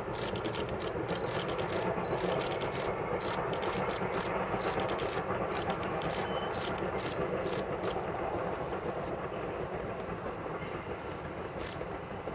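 Distant steam locomotive hauling its train up the valley: a steady rumble of exhaust and running gear that swells over the first couple of seconds and fades after about eight. Over it, camera shutters click in rapid bursts.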